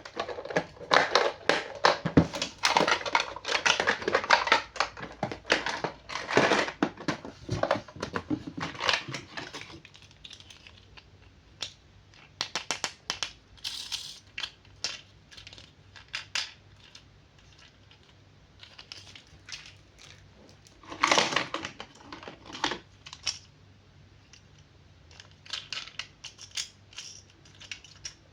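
Toy packaging being handled and opened: dense crinkling and tearing for about the first ten seconds, then scattered rustles and clicks, with one louder crinkling burst near the middle.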